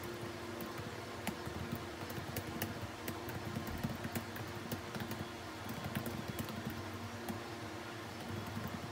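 Typing on a laptop keyboard: a quick, irregular run of key clicks over a steady low hum.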